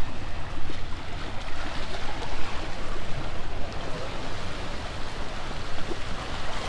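Choppy surf washing and churning around the wooden pier pilings, a steady rush of water.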